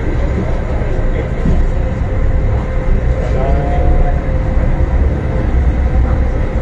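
MTR M-Train electric multiple unit moving through a station, heard from inside the car by the doors: a loud, steady low rumble of motors and wheels on rail. About halfway through, a short tone rises and then holds.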